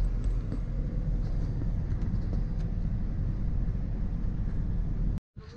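Car driving, heard from inside the cabin: a steady low rumble of engine and road noise, cut off abruptly near the end.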